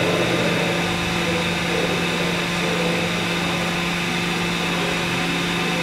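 Steady machinery hum with a constant low tone under a hiss, from the running equipment of a structural load-testing rig.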